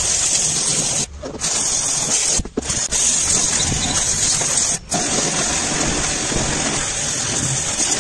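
Pressure washer jet spraying against the steel body and underside of a Bajaj Chetak scooter: a steady, loud hiss of water that breaks off briefly three times.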